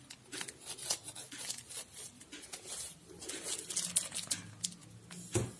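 Crinkling and rustling of a plastic piping bag squeezed in the hands as cream is piped into crisp choux éclair shells, a string of short crackles, with a soft bump near the end.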